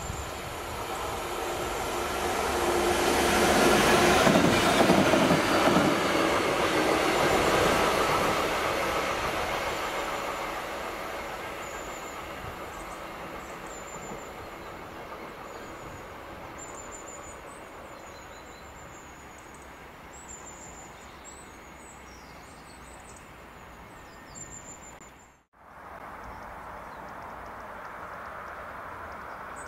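Pair of Class 66 diesel locomotives running light past, their EMD two-stroke diesel engines growing louder to a peak about four seconds in, then slowly fading away. Later, birds chirp over the fading engine noise, and after an abrupt cut another locomotive's engine is heard faintly in the distance.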